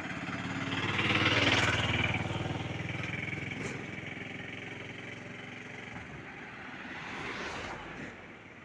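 Road traffic: a vehicle's engine passing close by, loudest about a second and a half in and then fading, with a second, smaller swell near the end.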